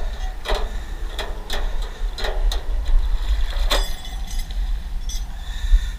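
Water splashing in a string of short splashes as a satellite dish stuck in underwater rocks is jerked on a rope, over a steady low rumble of wind on the microphone.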